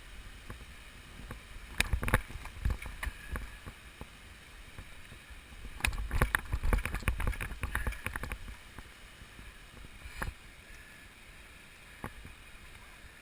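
Irregular knocks, scrapes and rustles in two bursts, the second and longer one about six seconds in, with single knocks later, over a faint steady background.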